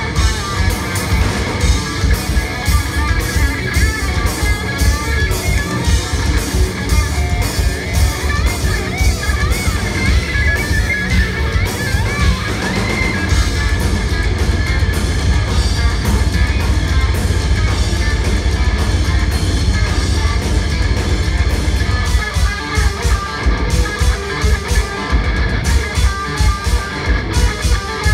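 Progressive metal band playing live through a club PA: electric guitar, bass, keyboards and drums, loud, with a steady drum pulse and a denser, more continuous stretch in the middle.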